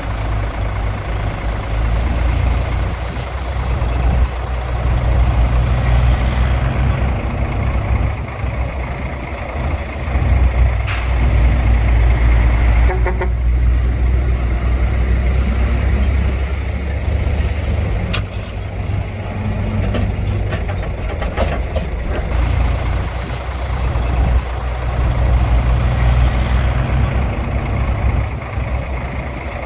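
Heavy diesel earthmoving machinery, bulldozers and dump trucks, running and working under load. The deep engine rumble rises and falls, with a few sharp metallic knocks.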